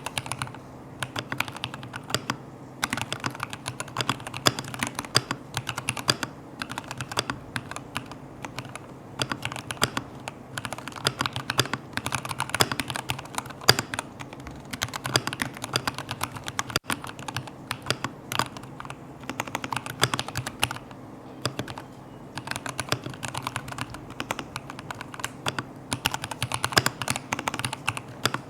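Typing on a Royal Kludge RK84 mechanical keyboard with Gateron Milky Yellow linear switches, XDA-profile keycaps and tape and foam mods. It is a fast, continuous run of keystroke clacks with short pauses now and then.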